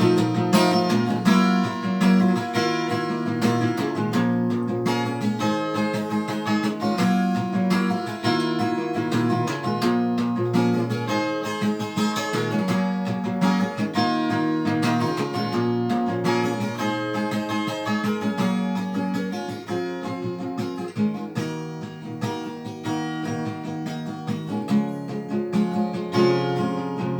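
Acoustic guitar playing an instrumental passage, picked and strummed chords in a steady rhythm.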